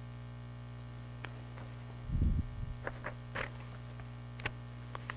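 Steady electrical mains hum from the sound system, with a low thump about two seconds in, then a few soft clicks and paper rustles as pages are handled at the pulpit.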